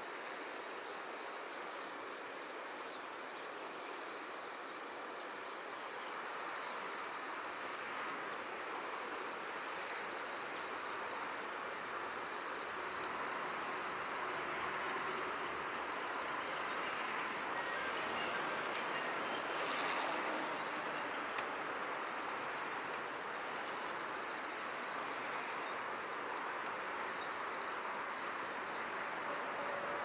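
A chorus of insects chirring in a steady, fast-pulsing high trill over a soft, even background hiss.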